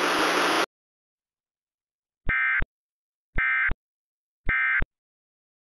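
A hiss of static cuts off less than a second in. Then the Emergency Alert System end-of-message sounds: three short, identical bursts of SAME digital data tones, about a second apart, which signal that the alert is over.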